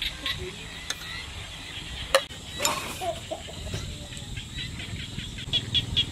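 Birds calling outdoors: rapid series of high chirps at the start and again near the end, a few short low clucks about three seconds in, and a sharp click about two seconds in.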